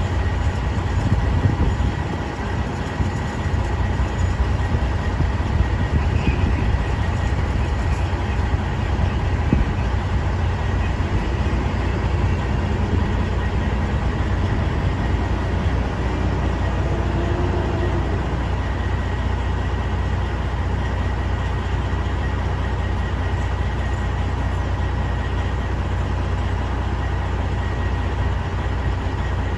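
Semi truck's diesel engine idling with a steady low rumble and a faint constant hum above it.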